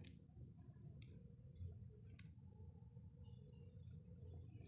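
Near silence: faint outdoor ambience with a low rumble, scattered faint bird and insect chirps, and a few faint clicks.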